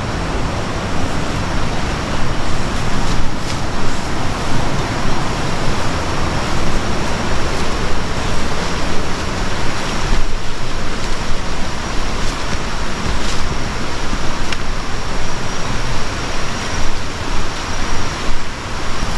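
Steady rushing of running water, with an uneven low rumble of wind buffeting the microphone.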